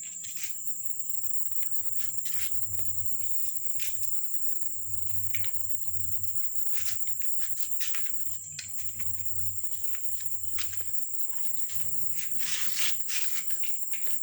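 Steady high-pitched chirring of crickets, with scattered light clicks and rustles. The clicks bunch together about twelve to thirteen seconds in.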